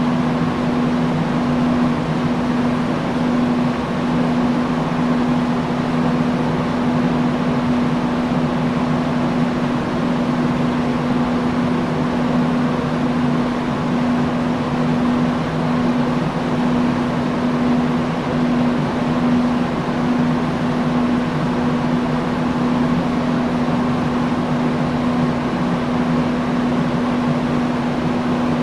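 Industrial fan running at a constant speed: an even rush of air over a steady motor hum.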